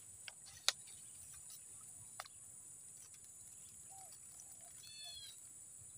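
Steady high-pitched chorus of insects in the swamp vegetation, with a couple of sharp clicks in the first seconds and a short call from a bird about five seconds in.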